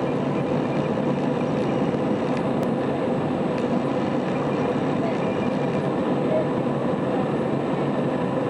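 Airbus A320 cabin noise while taxiing: the jet engines running at low thrust and the cabin air system make a steady, even rush with a faint steady hum.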